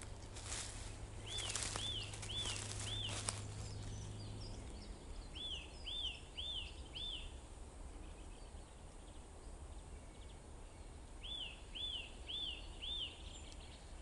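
A small songbird singing three times, each phrase four quick, arched whistled notes repeated alike. In the first few seconds a few footsteps crack on the forest floor.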